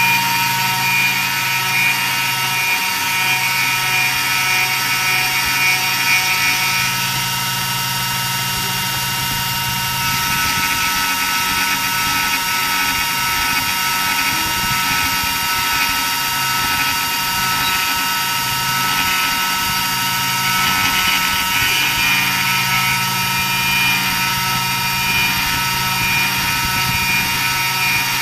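300 W spindle of a homemade CNC router running with a steady high whine while its 3 mm flat end mill cuts a 1 mm deep groove in wood, with a rasping hiss from the cut. A lower hum drops out for a few seconds around the middle and comes back.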